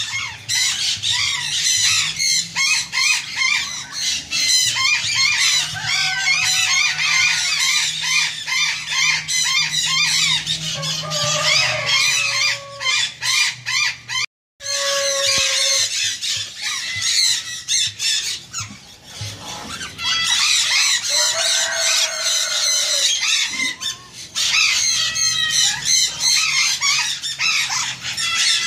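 Many birds calling at once in an aviary: a dense, continuous chatter of high chirps, with some lower, longer squawks and calls mixed in. It breaks off briefly about halfway through.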